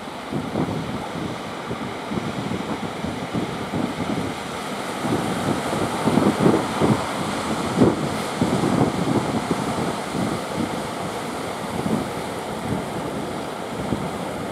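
Wind gusting on the microphone over the wash of choppy surf, with the gusts strongest about halfway through.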